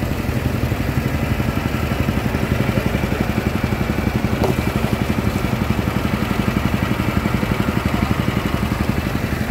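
Large stationary engine driving a pond water pump, running steadily with a fast, even throb.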